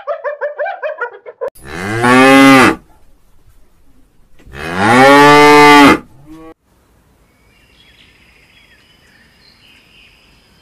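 A spotted hyena giggling, a quick run of rising-and-falling yelps that stops about a second and a half in. Then a cow mooing twice, two long loud moos a couple of seconds apart, followed by only faint background noise with a thin high whine.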